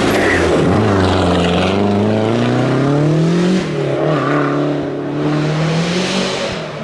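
Classic rally car's engine revving hard as it accelerates, its note climbing steadily and then dropping suddenly about halfway through before holding steadier.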